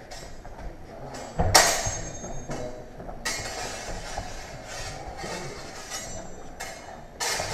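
Steel longswords clashing blade on blade during a fencing exchange: a series of sharp metallic strikes, the loudest about one and a half seconds in, ringing briefly after it.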